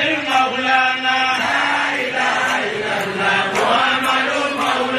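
A man's voice chanting an Islamic devotional praise song into a microphone, holding each note for about a second with slight bends in pitch.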